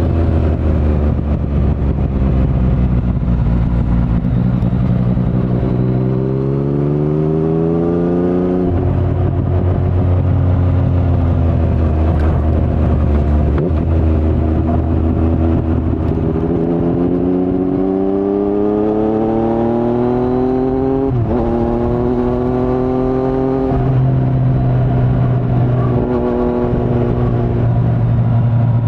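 2019 Yamaha MT-09's three-cylinder engine through an Akrapovic carbon full-system exhaust with no dB killer, heard from the rider's seat. Its pitch sinks at first, then climbs twice under acceleration, each climb ending in a sudden drop as it shifts up.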